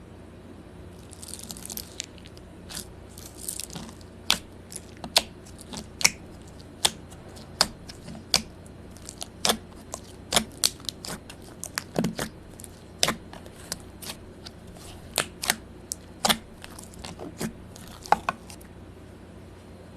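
Slime being squeezed and pressed by hand, giving sharp, irregular pops and clicks about once a second, with a short crackling rustle in the first few seconds.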